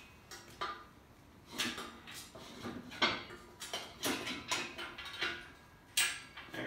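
Irregular metal clanks, clicks and short scrapes, about nine in all, as parts of a Logrite BTS brush hauler cart frame are handled and fitted by hand.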